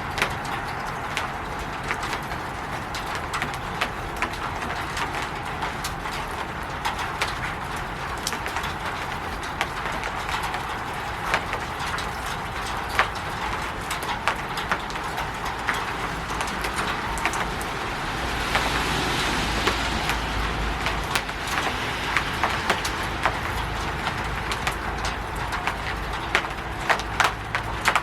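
Rain falling on a roof: a steady hiss with many separate drops ticking sharply on it. A little past halfway a fuller wash of sound with a low rumble rises and stays.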